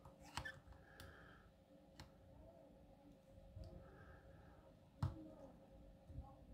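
Faint metallic clicks and taps of a tension tool and hook pick going into and working the keyway of an American Series 200 padlock, with the sharpest click about five seconds in.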